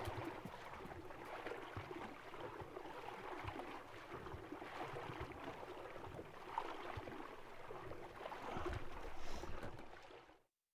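Running river water, a steady splashing rush with occasional low thumps, cutting off suddenly near the end.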